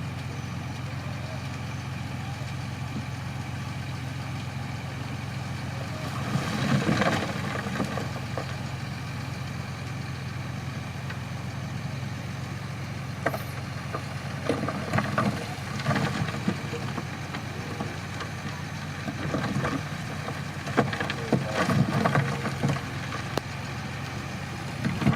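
Shantui crawler bulldozer's diesel engine running steadily, with bouts of louder clanking and rattling about seven seconds in and again through the second half.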